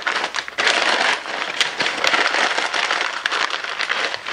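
Pink butcher paper crinkling and rustling as it is rolled and tucked by hand around a rack of ribs.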